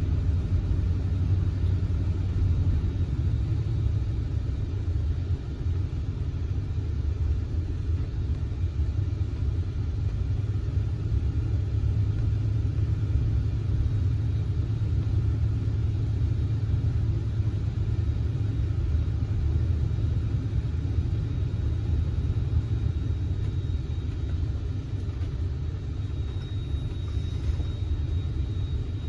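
1971 Oldsmobile Cutlass S driving at a steady pace, its V8 and the road making a low, even rumble.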